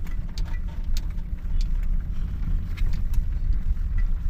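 Vehicle driving on an unpaved, graded dirt road: a steady low rumble of the moving car, with scattered small clicks and knocks from the rough surface.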